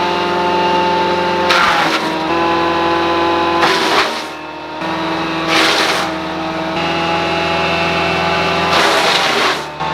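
Altec DC12 direct-drive wood chipper's engine running steadily at working speed, with four short rushes of noise as pieces of sawmill waste are chipped and blown out the chute; the engine pitch dips a little under each load.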